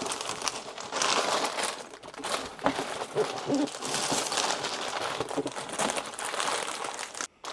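Plastic bags of toy building bricks crinkling and rustling as they are handled and lifted out of the kit's box. The sound breaks off briefly near the end.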